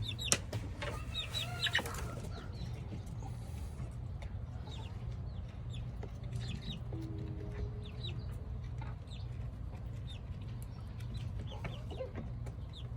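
Backyard chickens clucking and calling, with a bunch of louder calls in the first two seconds and then scattered short, high calls.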